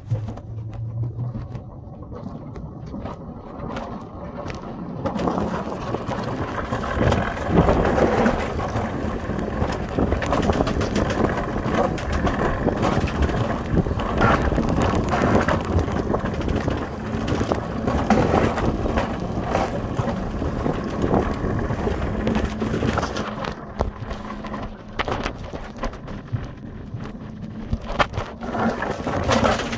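Summer toboggan sled running down its track, a steady rumbling rattle of wheels that grows louder about five seconds in as it picks up speed.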